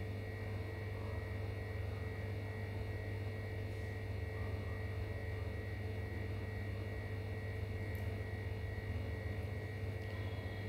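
Steady low electrical hum with a faint buzz over room tone; no other sound stands out.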